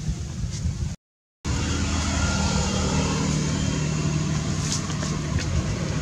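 Steady low hum of a running motor vehicle engine. The sound drops out completely for a moment about a second in.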